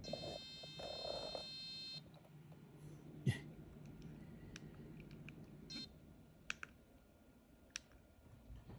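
An electronic beep from a handheld Hak5 WiFi Pineapple Pager's small speaker, held for about two seconds, followed by scattered sharp clicks of its buttons, the loudest a little over three seconds in, with a short blip of a beep near six seconds.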